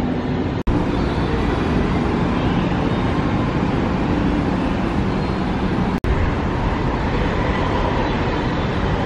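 Steady city traffic noise from cars and taxis on a busy road, a dense low rumble with no distinct events. It cuts out for an instant twice, about half a second in and about six seconds in.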